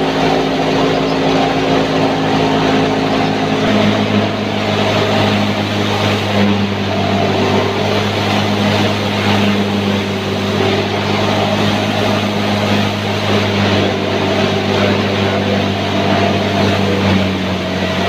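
Tractor-driven wheat thresher running steadily under load, the tractor engine and the spinning threshing drum making a continuous hum as wheat straw is fed in and chopped straw is blown out. The hum shifts slightly deeper about four seconds in.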